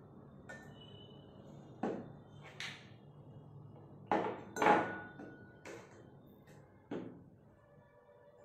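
About six hard knocks of a plastic bottle and a glass beaker being set down on a table, the loudest pair about four and a half seconds in.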